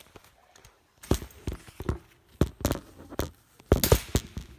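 A quick run of thuds on a hardwood floor, about two or three a second, starting about a second in and stopping near the end.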